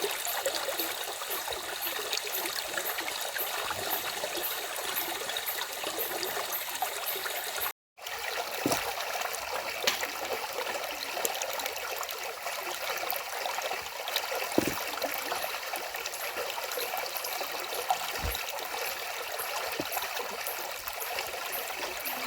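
A stream running steadily, with a continuous rushing and trickling of water. The sound drops out for a moment about eight seconds in, and a faint high pulsing, about two beats a second, runs above the water.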